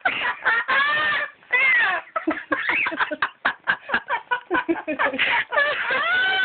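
A parrot imitating laughter: a quick run of short, choppy calls broken by a few longer calls that rise and fall in pitch.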